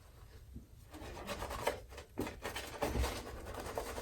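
Shaving brush bristles scrubbing lather over the skin of the face in quick, irregular rubbing strokes, starting about a second in.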